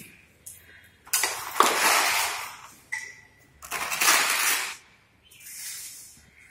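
Hook-and-loop straps on a spine board and head immobiliser being ripped open three times: a long rip about a second in, a shorter one in the middle and a fainter one near the end. A few light clicks come between them.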